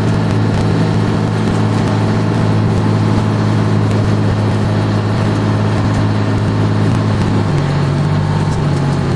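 Large vehicle engine idling with a steady low hum; its note changes about three-quarters of the way through.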